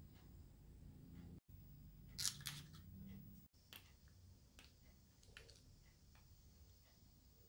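Scissors snipping open a plastic single-use sauce packet: a few sharp clicks about two seconds in. Faint scattered crinkles of the packet follow as it is squeezed.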